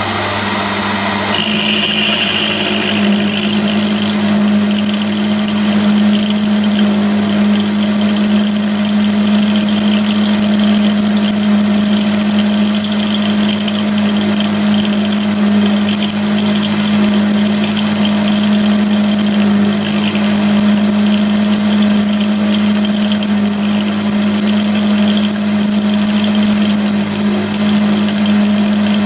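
End mill in a Myford milling attachment cutting a keyway slot in a steel shaft on a Myford ML7 lathe: the milling spindle's motor runs with a steady hum under the hiss of the cut. The sound changes about a second and a half in, with a brief high whine as the cut settles.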